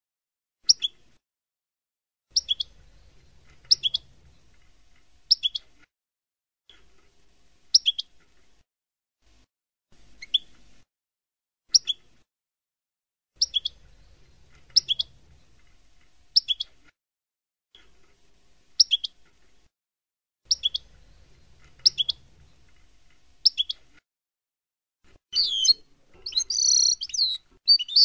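European goldfinch giving short, sharp high call notes, singly or in pairs about a second apart, then breaking into a rapid twittering song phrase near the end.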